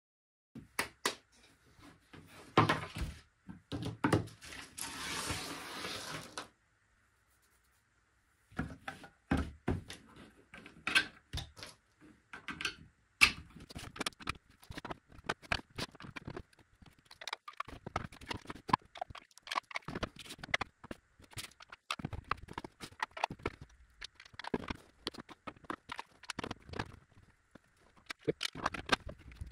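White 3D-printed plastic track tiles being handled on a table: repeated light knocks and clacks as pieces are set down and fitted together. About five seconds in comes a noisy rasp lasting about two seconds, then a short pause before the clatter resumes.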